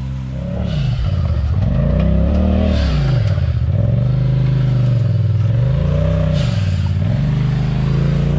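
Side-by-side UTV engine revving up and dropping back three times in slow waves, as a driver works the throttle while crawling over rock.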